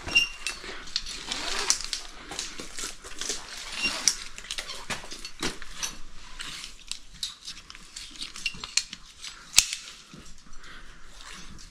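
Scrambling over cave rock: irregular scuffs and scrapes of boots and hands on stone, with light clinks of climbing gear. A sharp click stands out near the end.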